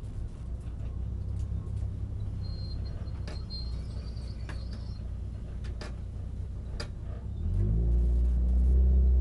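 Renault Clio RS 200's four-cylinder engine heard from inside the cabin while rolling slowly in first gear. It runs as a low, rough hum off the throttle, then picks up into a stronger, steadier drone about seven and a half seconds in. A few sharp clicks and a faint brief high squeak come in the middle.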